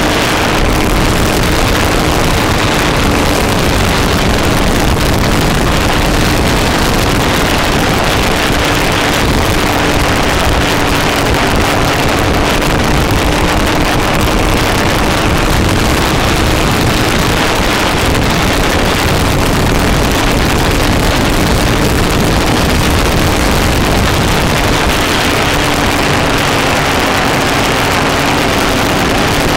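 Racing go-kart engine running flat out under an onboard camera, its note holding nearly steady. Wind buffets the microphone at speed.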